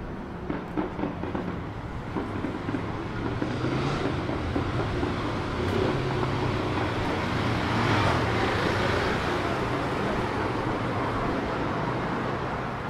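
City street traffic noise with a passing vehicle that swells to a peak about two-thirds of the way through and then eases off.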